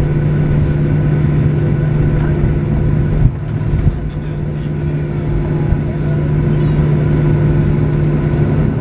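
Cabin noise inside a Boeing 737-800: the CFM56-7B turbofan engines and airflow making a steady, loud hum with a few steady tones above it. The level jumps and then dips briefly about three seconds in.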